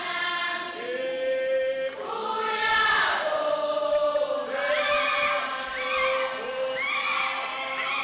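A group of voices singing together, holding long notes with some voices sliding up and down between them.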